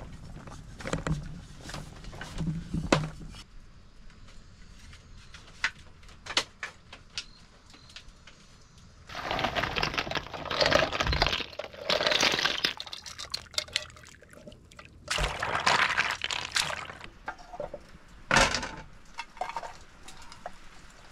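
Water pouring in several spells of a second or two, starting about nine seconds in, between scattered clicks and knocks.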